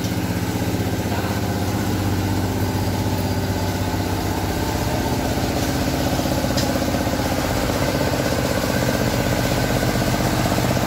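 A VST Shakti MT 270 compact tractor's diesel engine running steadily at low revs as the tractor creeps past close by.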